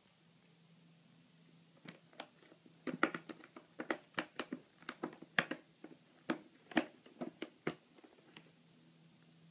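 A Snowshoe cat pawing and clawing at a cardboard scratcher pad in a plastic ball-track toy: an irregular run of sharp scratchy clicks and scrapes. It starts about two seconds in, is busiest in the middle, and stops about a second and a half before the end.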